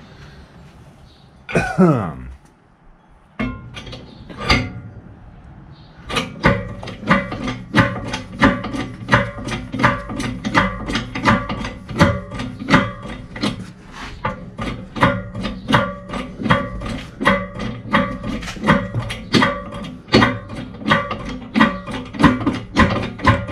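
Background music with a steady beat, starting about six seconds in. Before it comes a brief sound falling in pitch and a few clicks.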